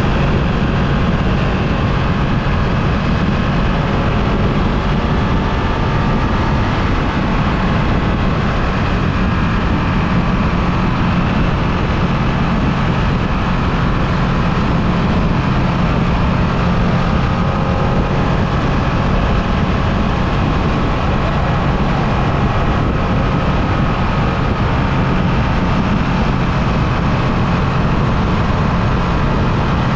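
2023 Ducati Streetfighter V2's 955 cc L-twin engine running at a steady cruising speed while riding, over a steady rush of wind and road noise.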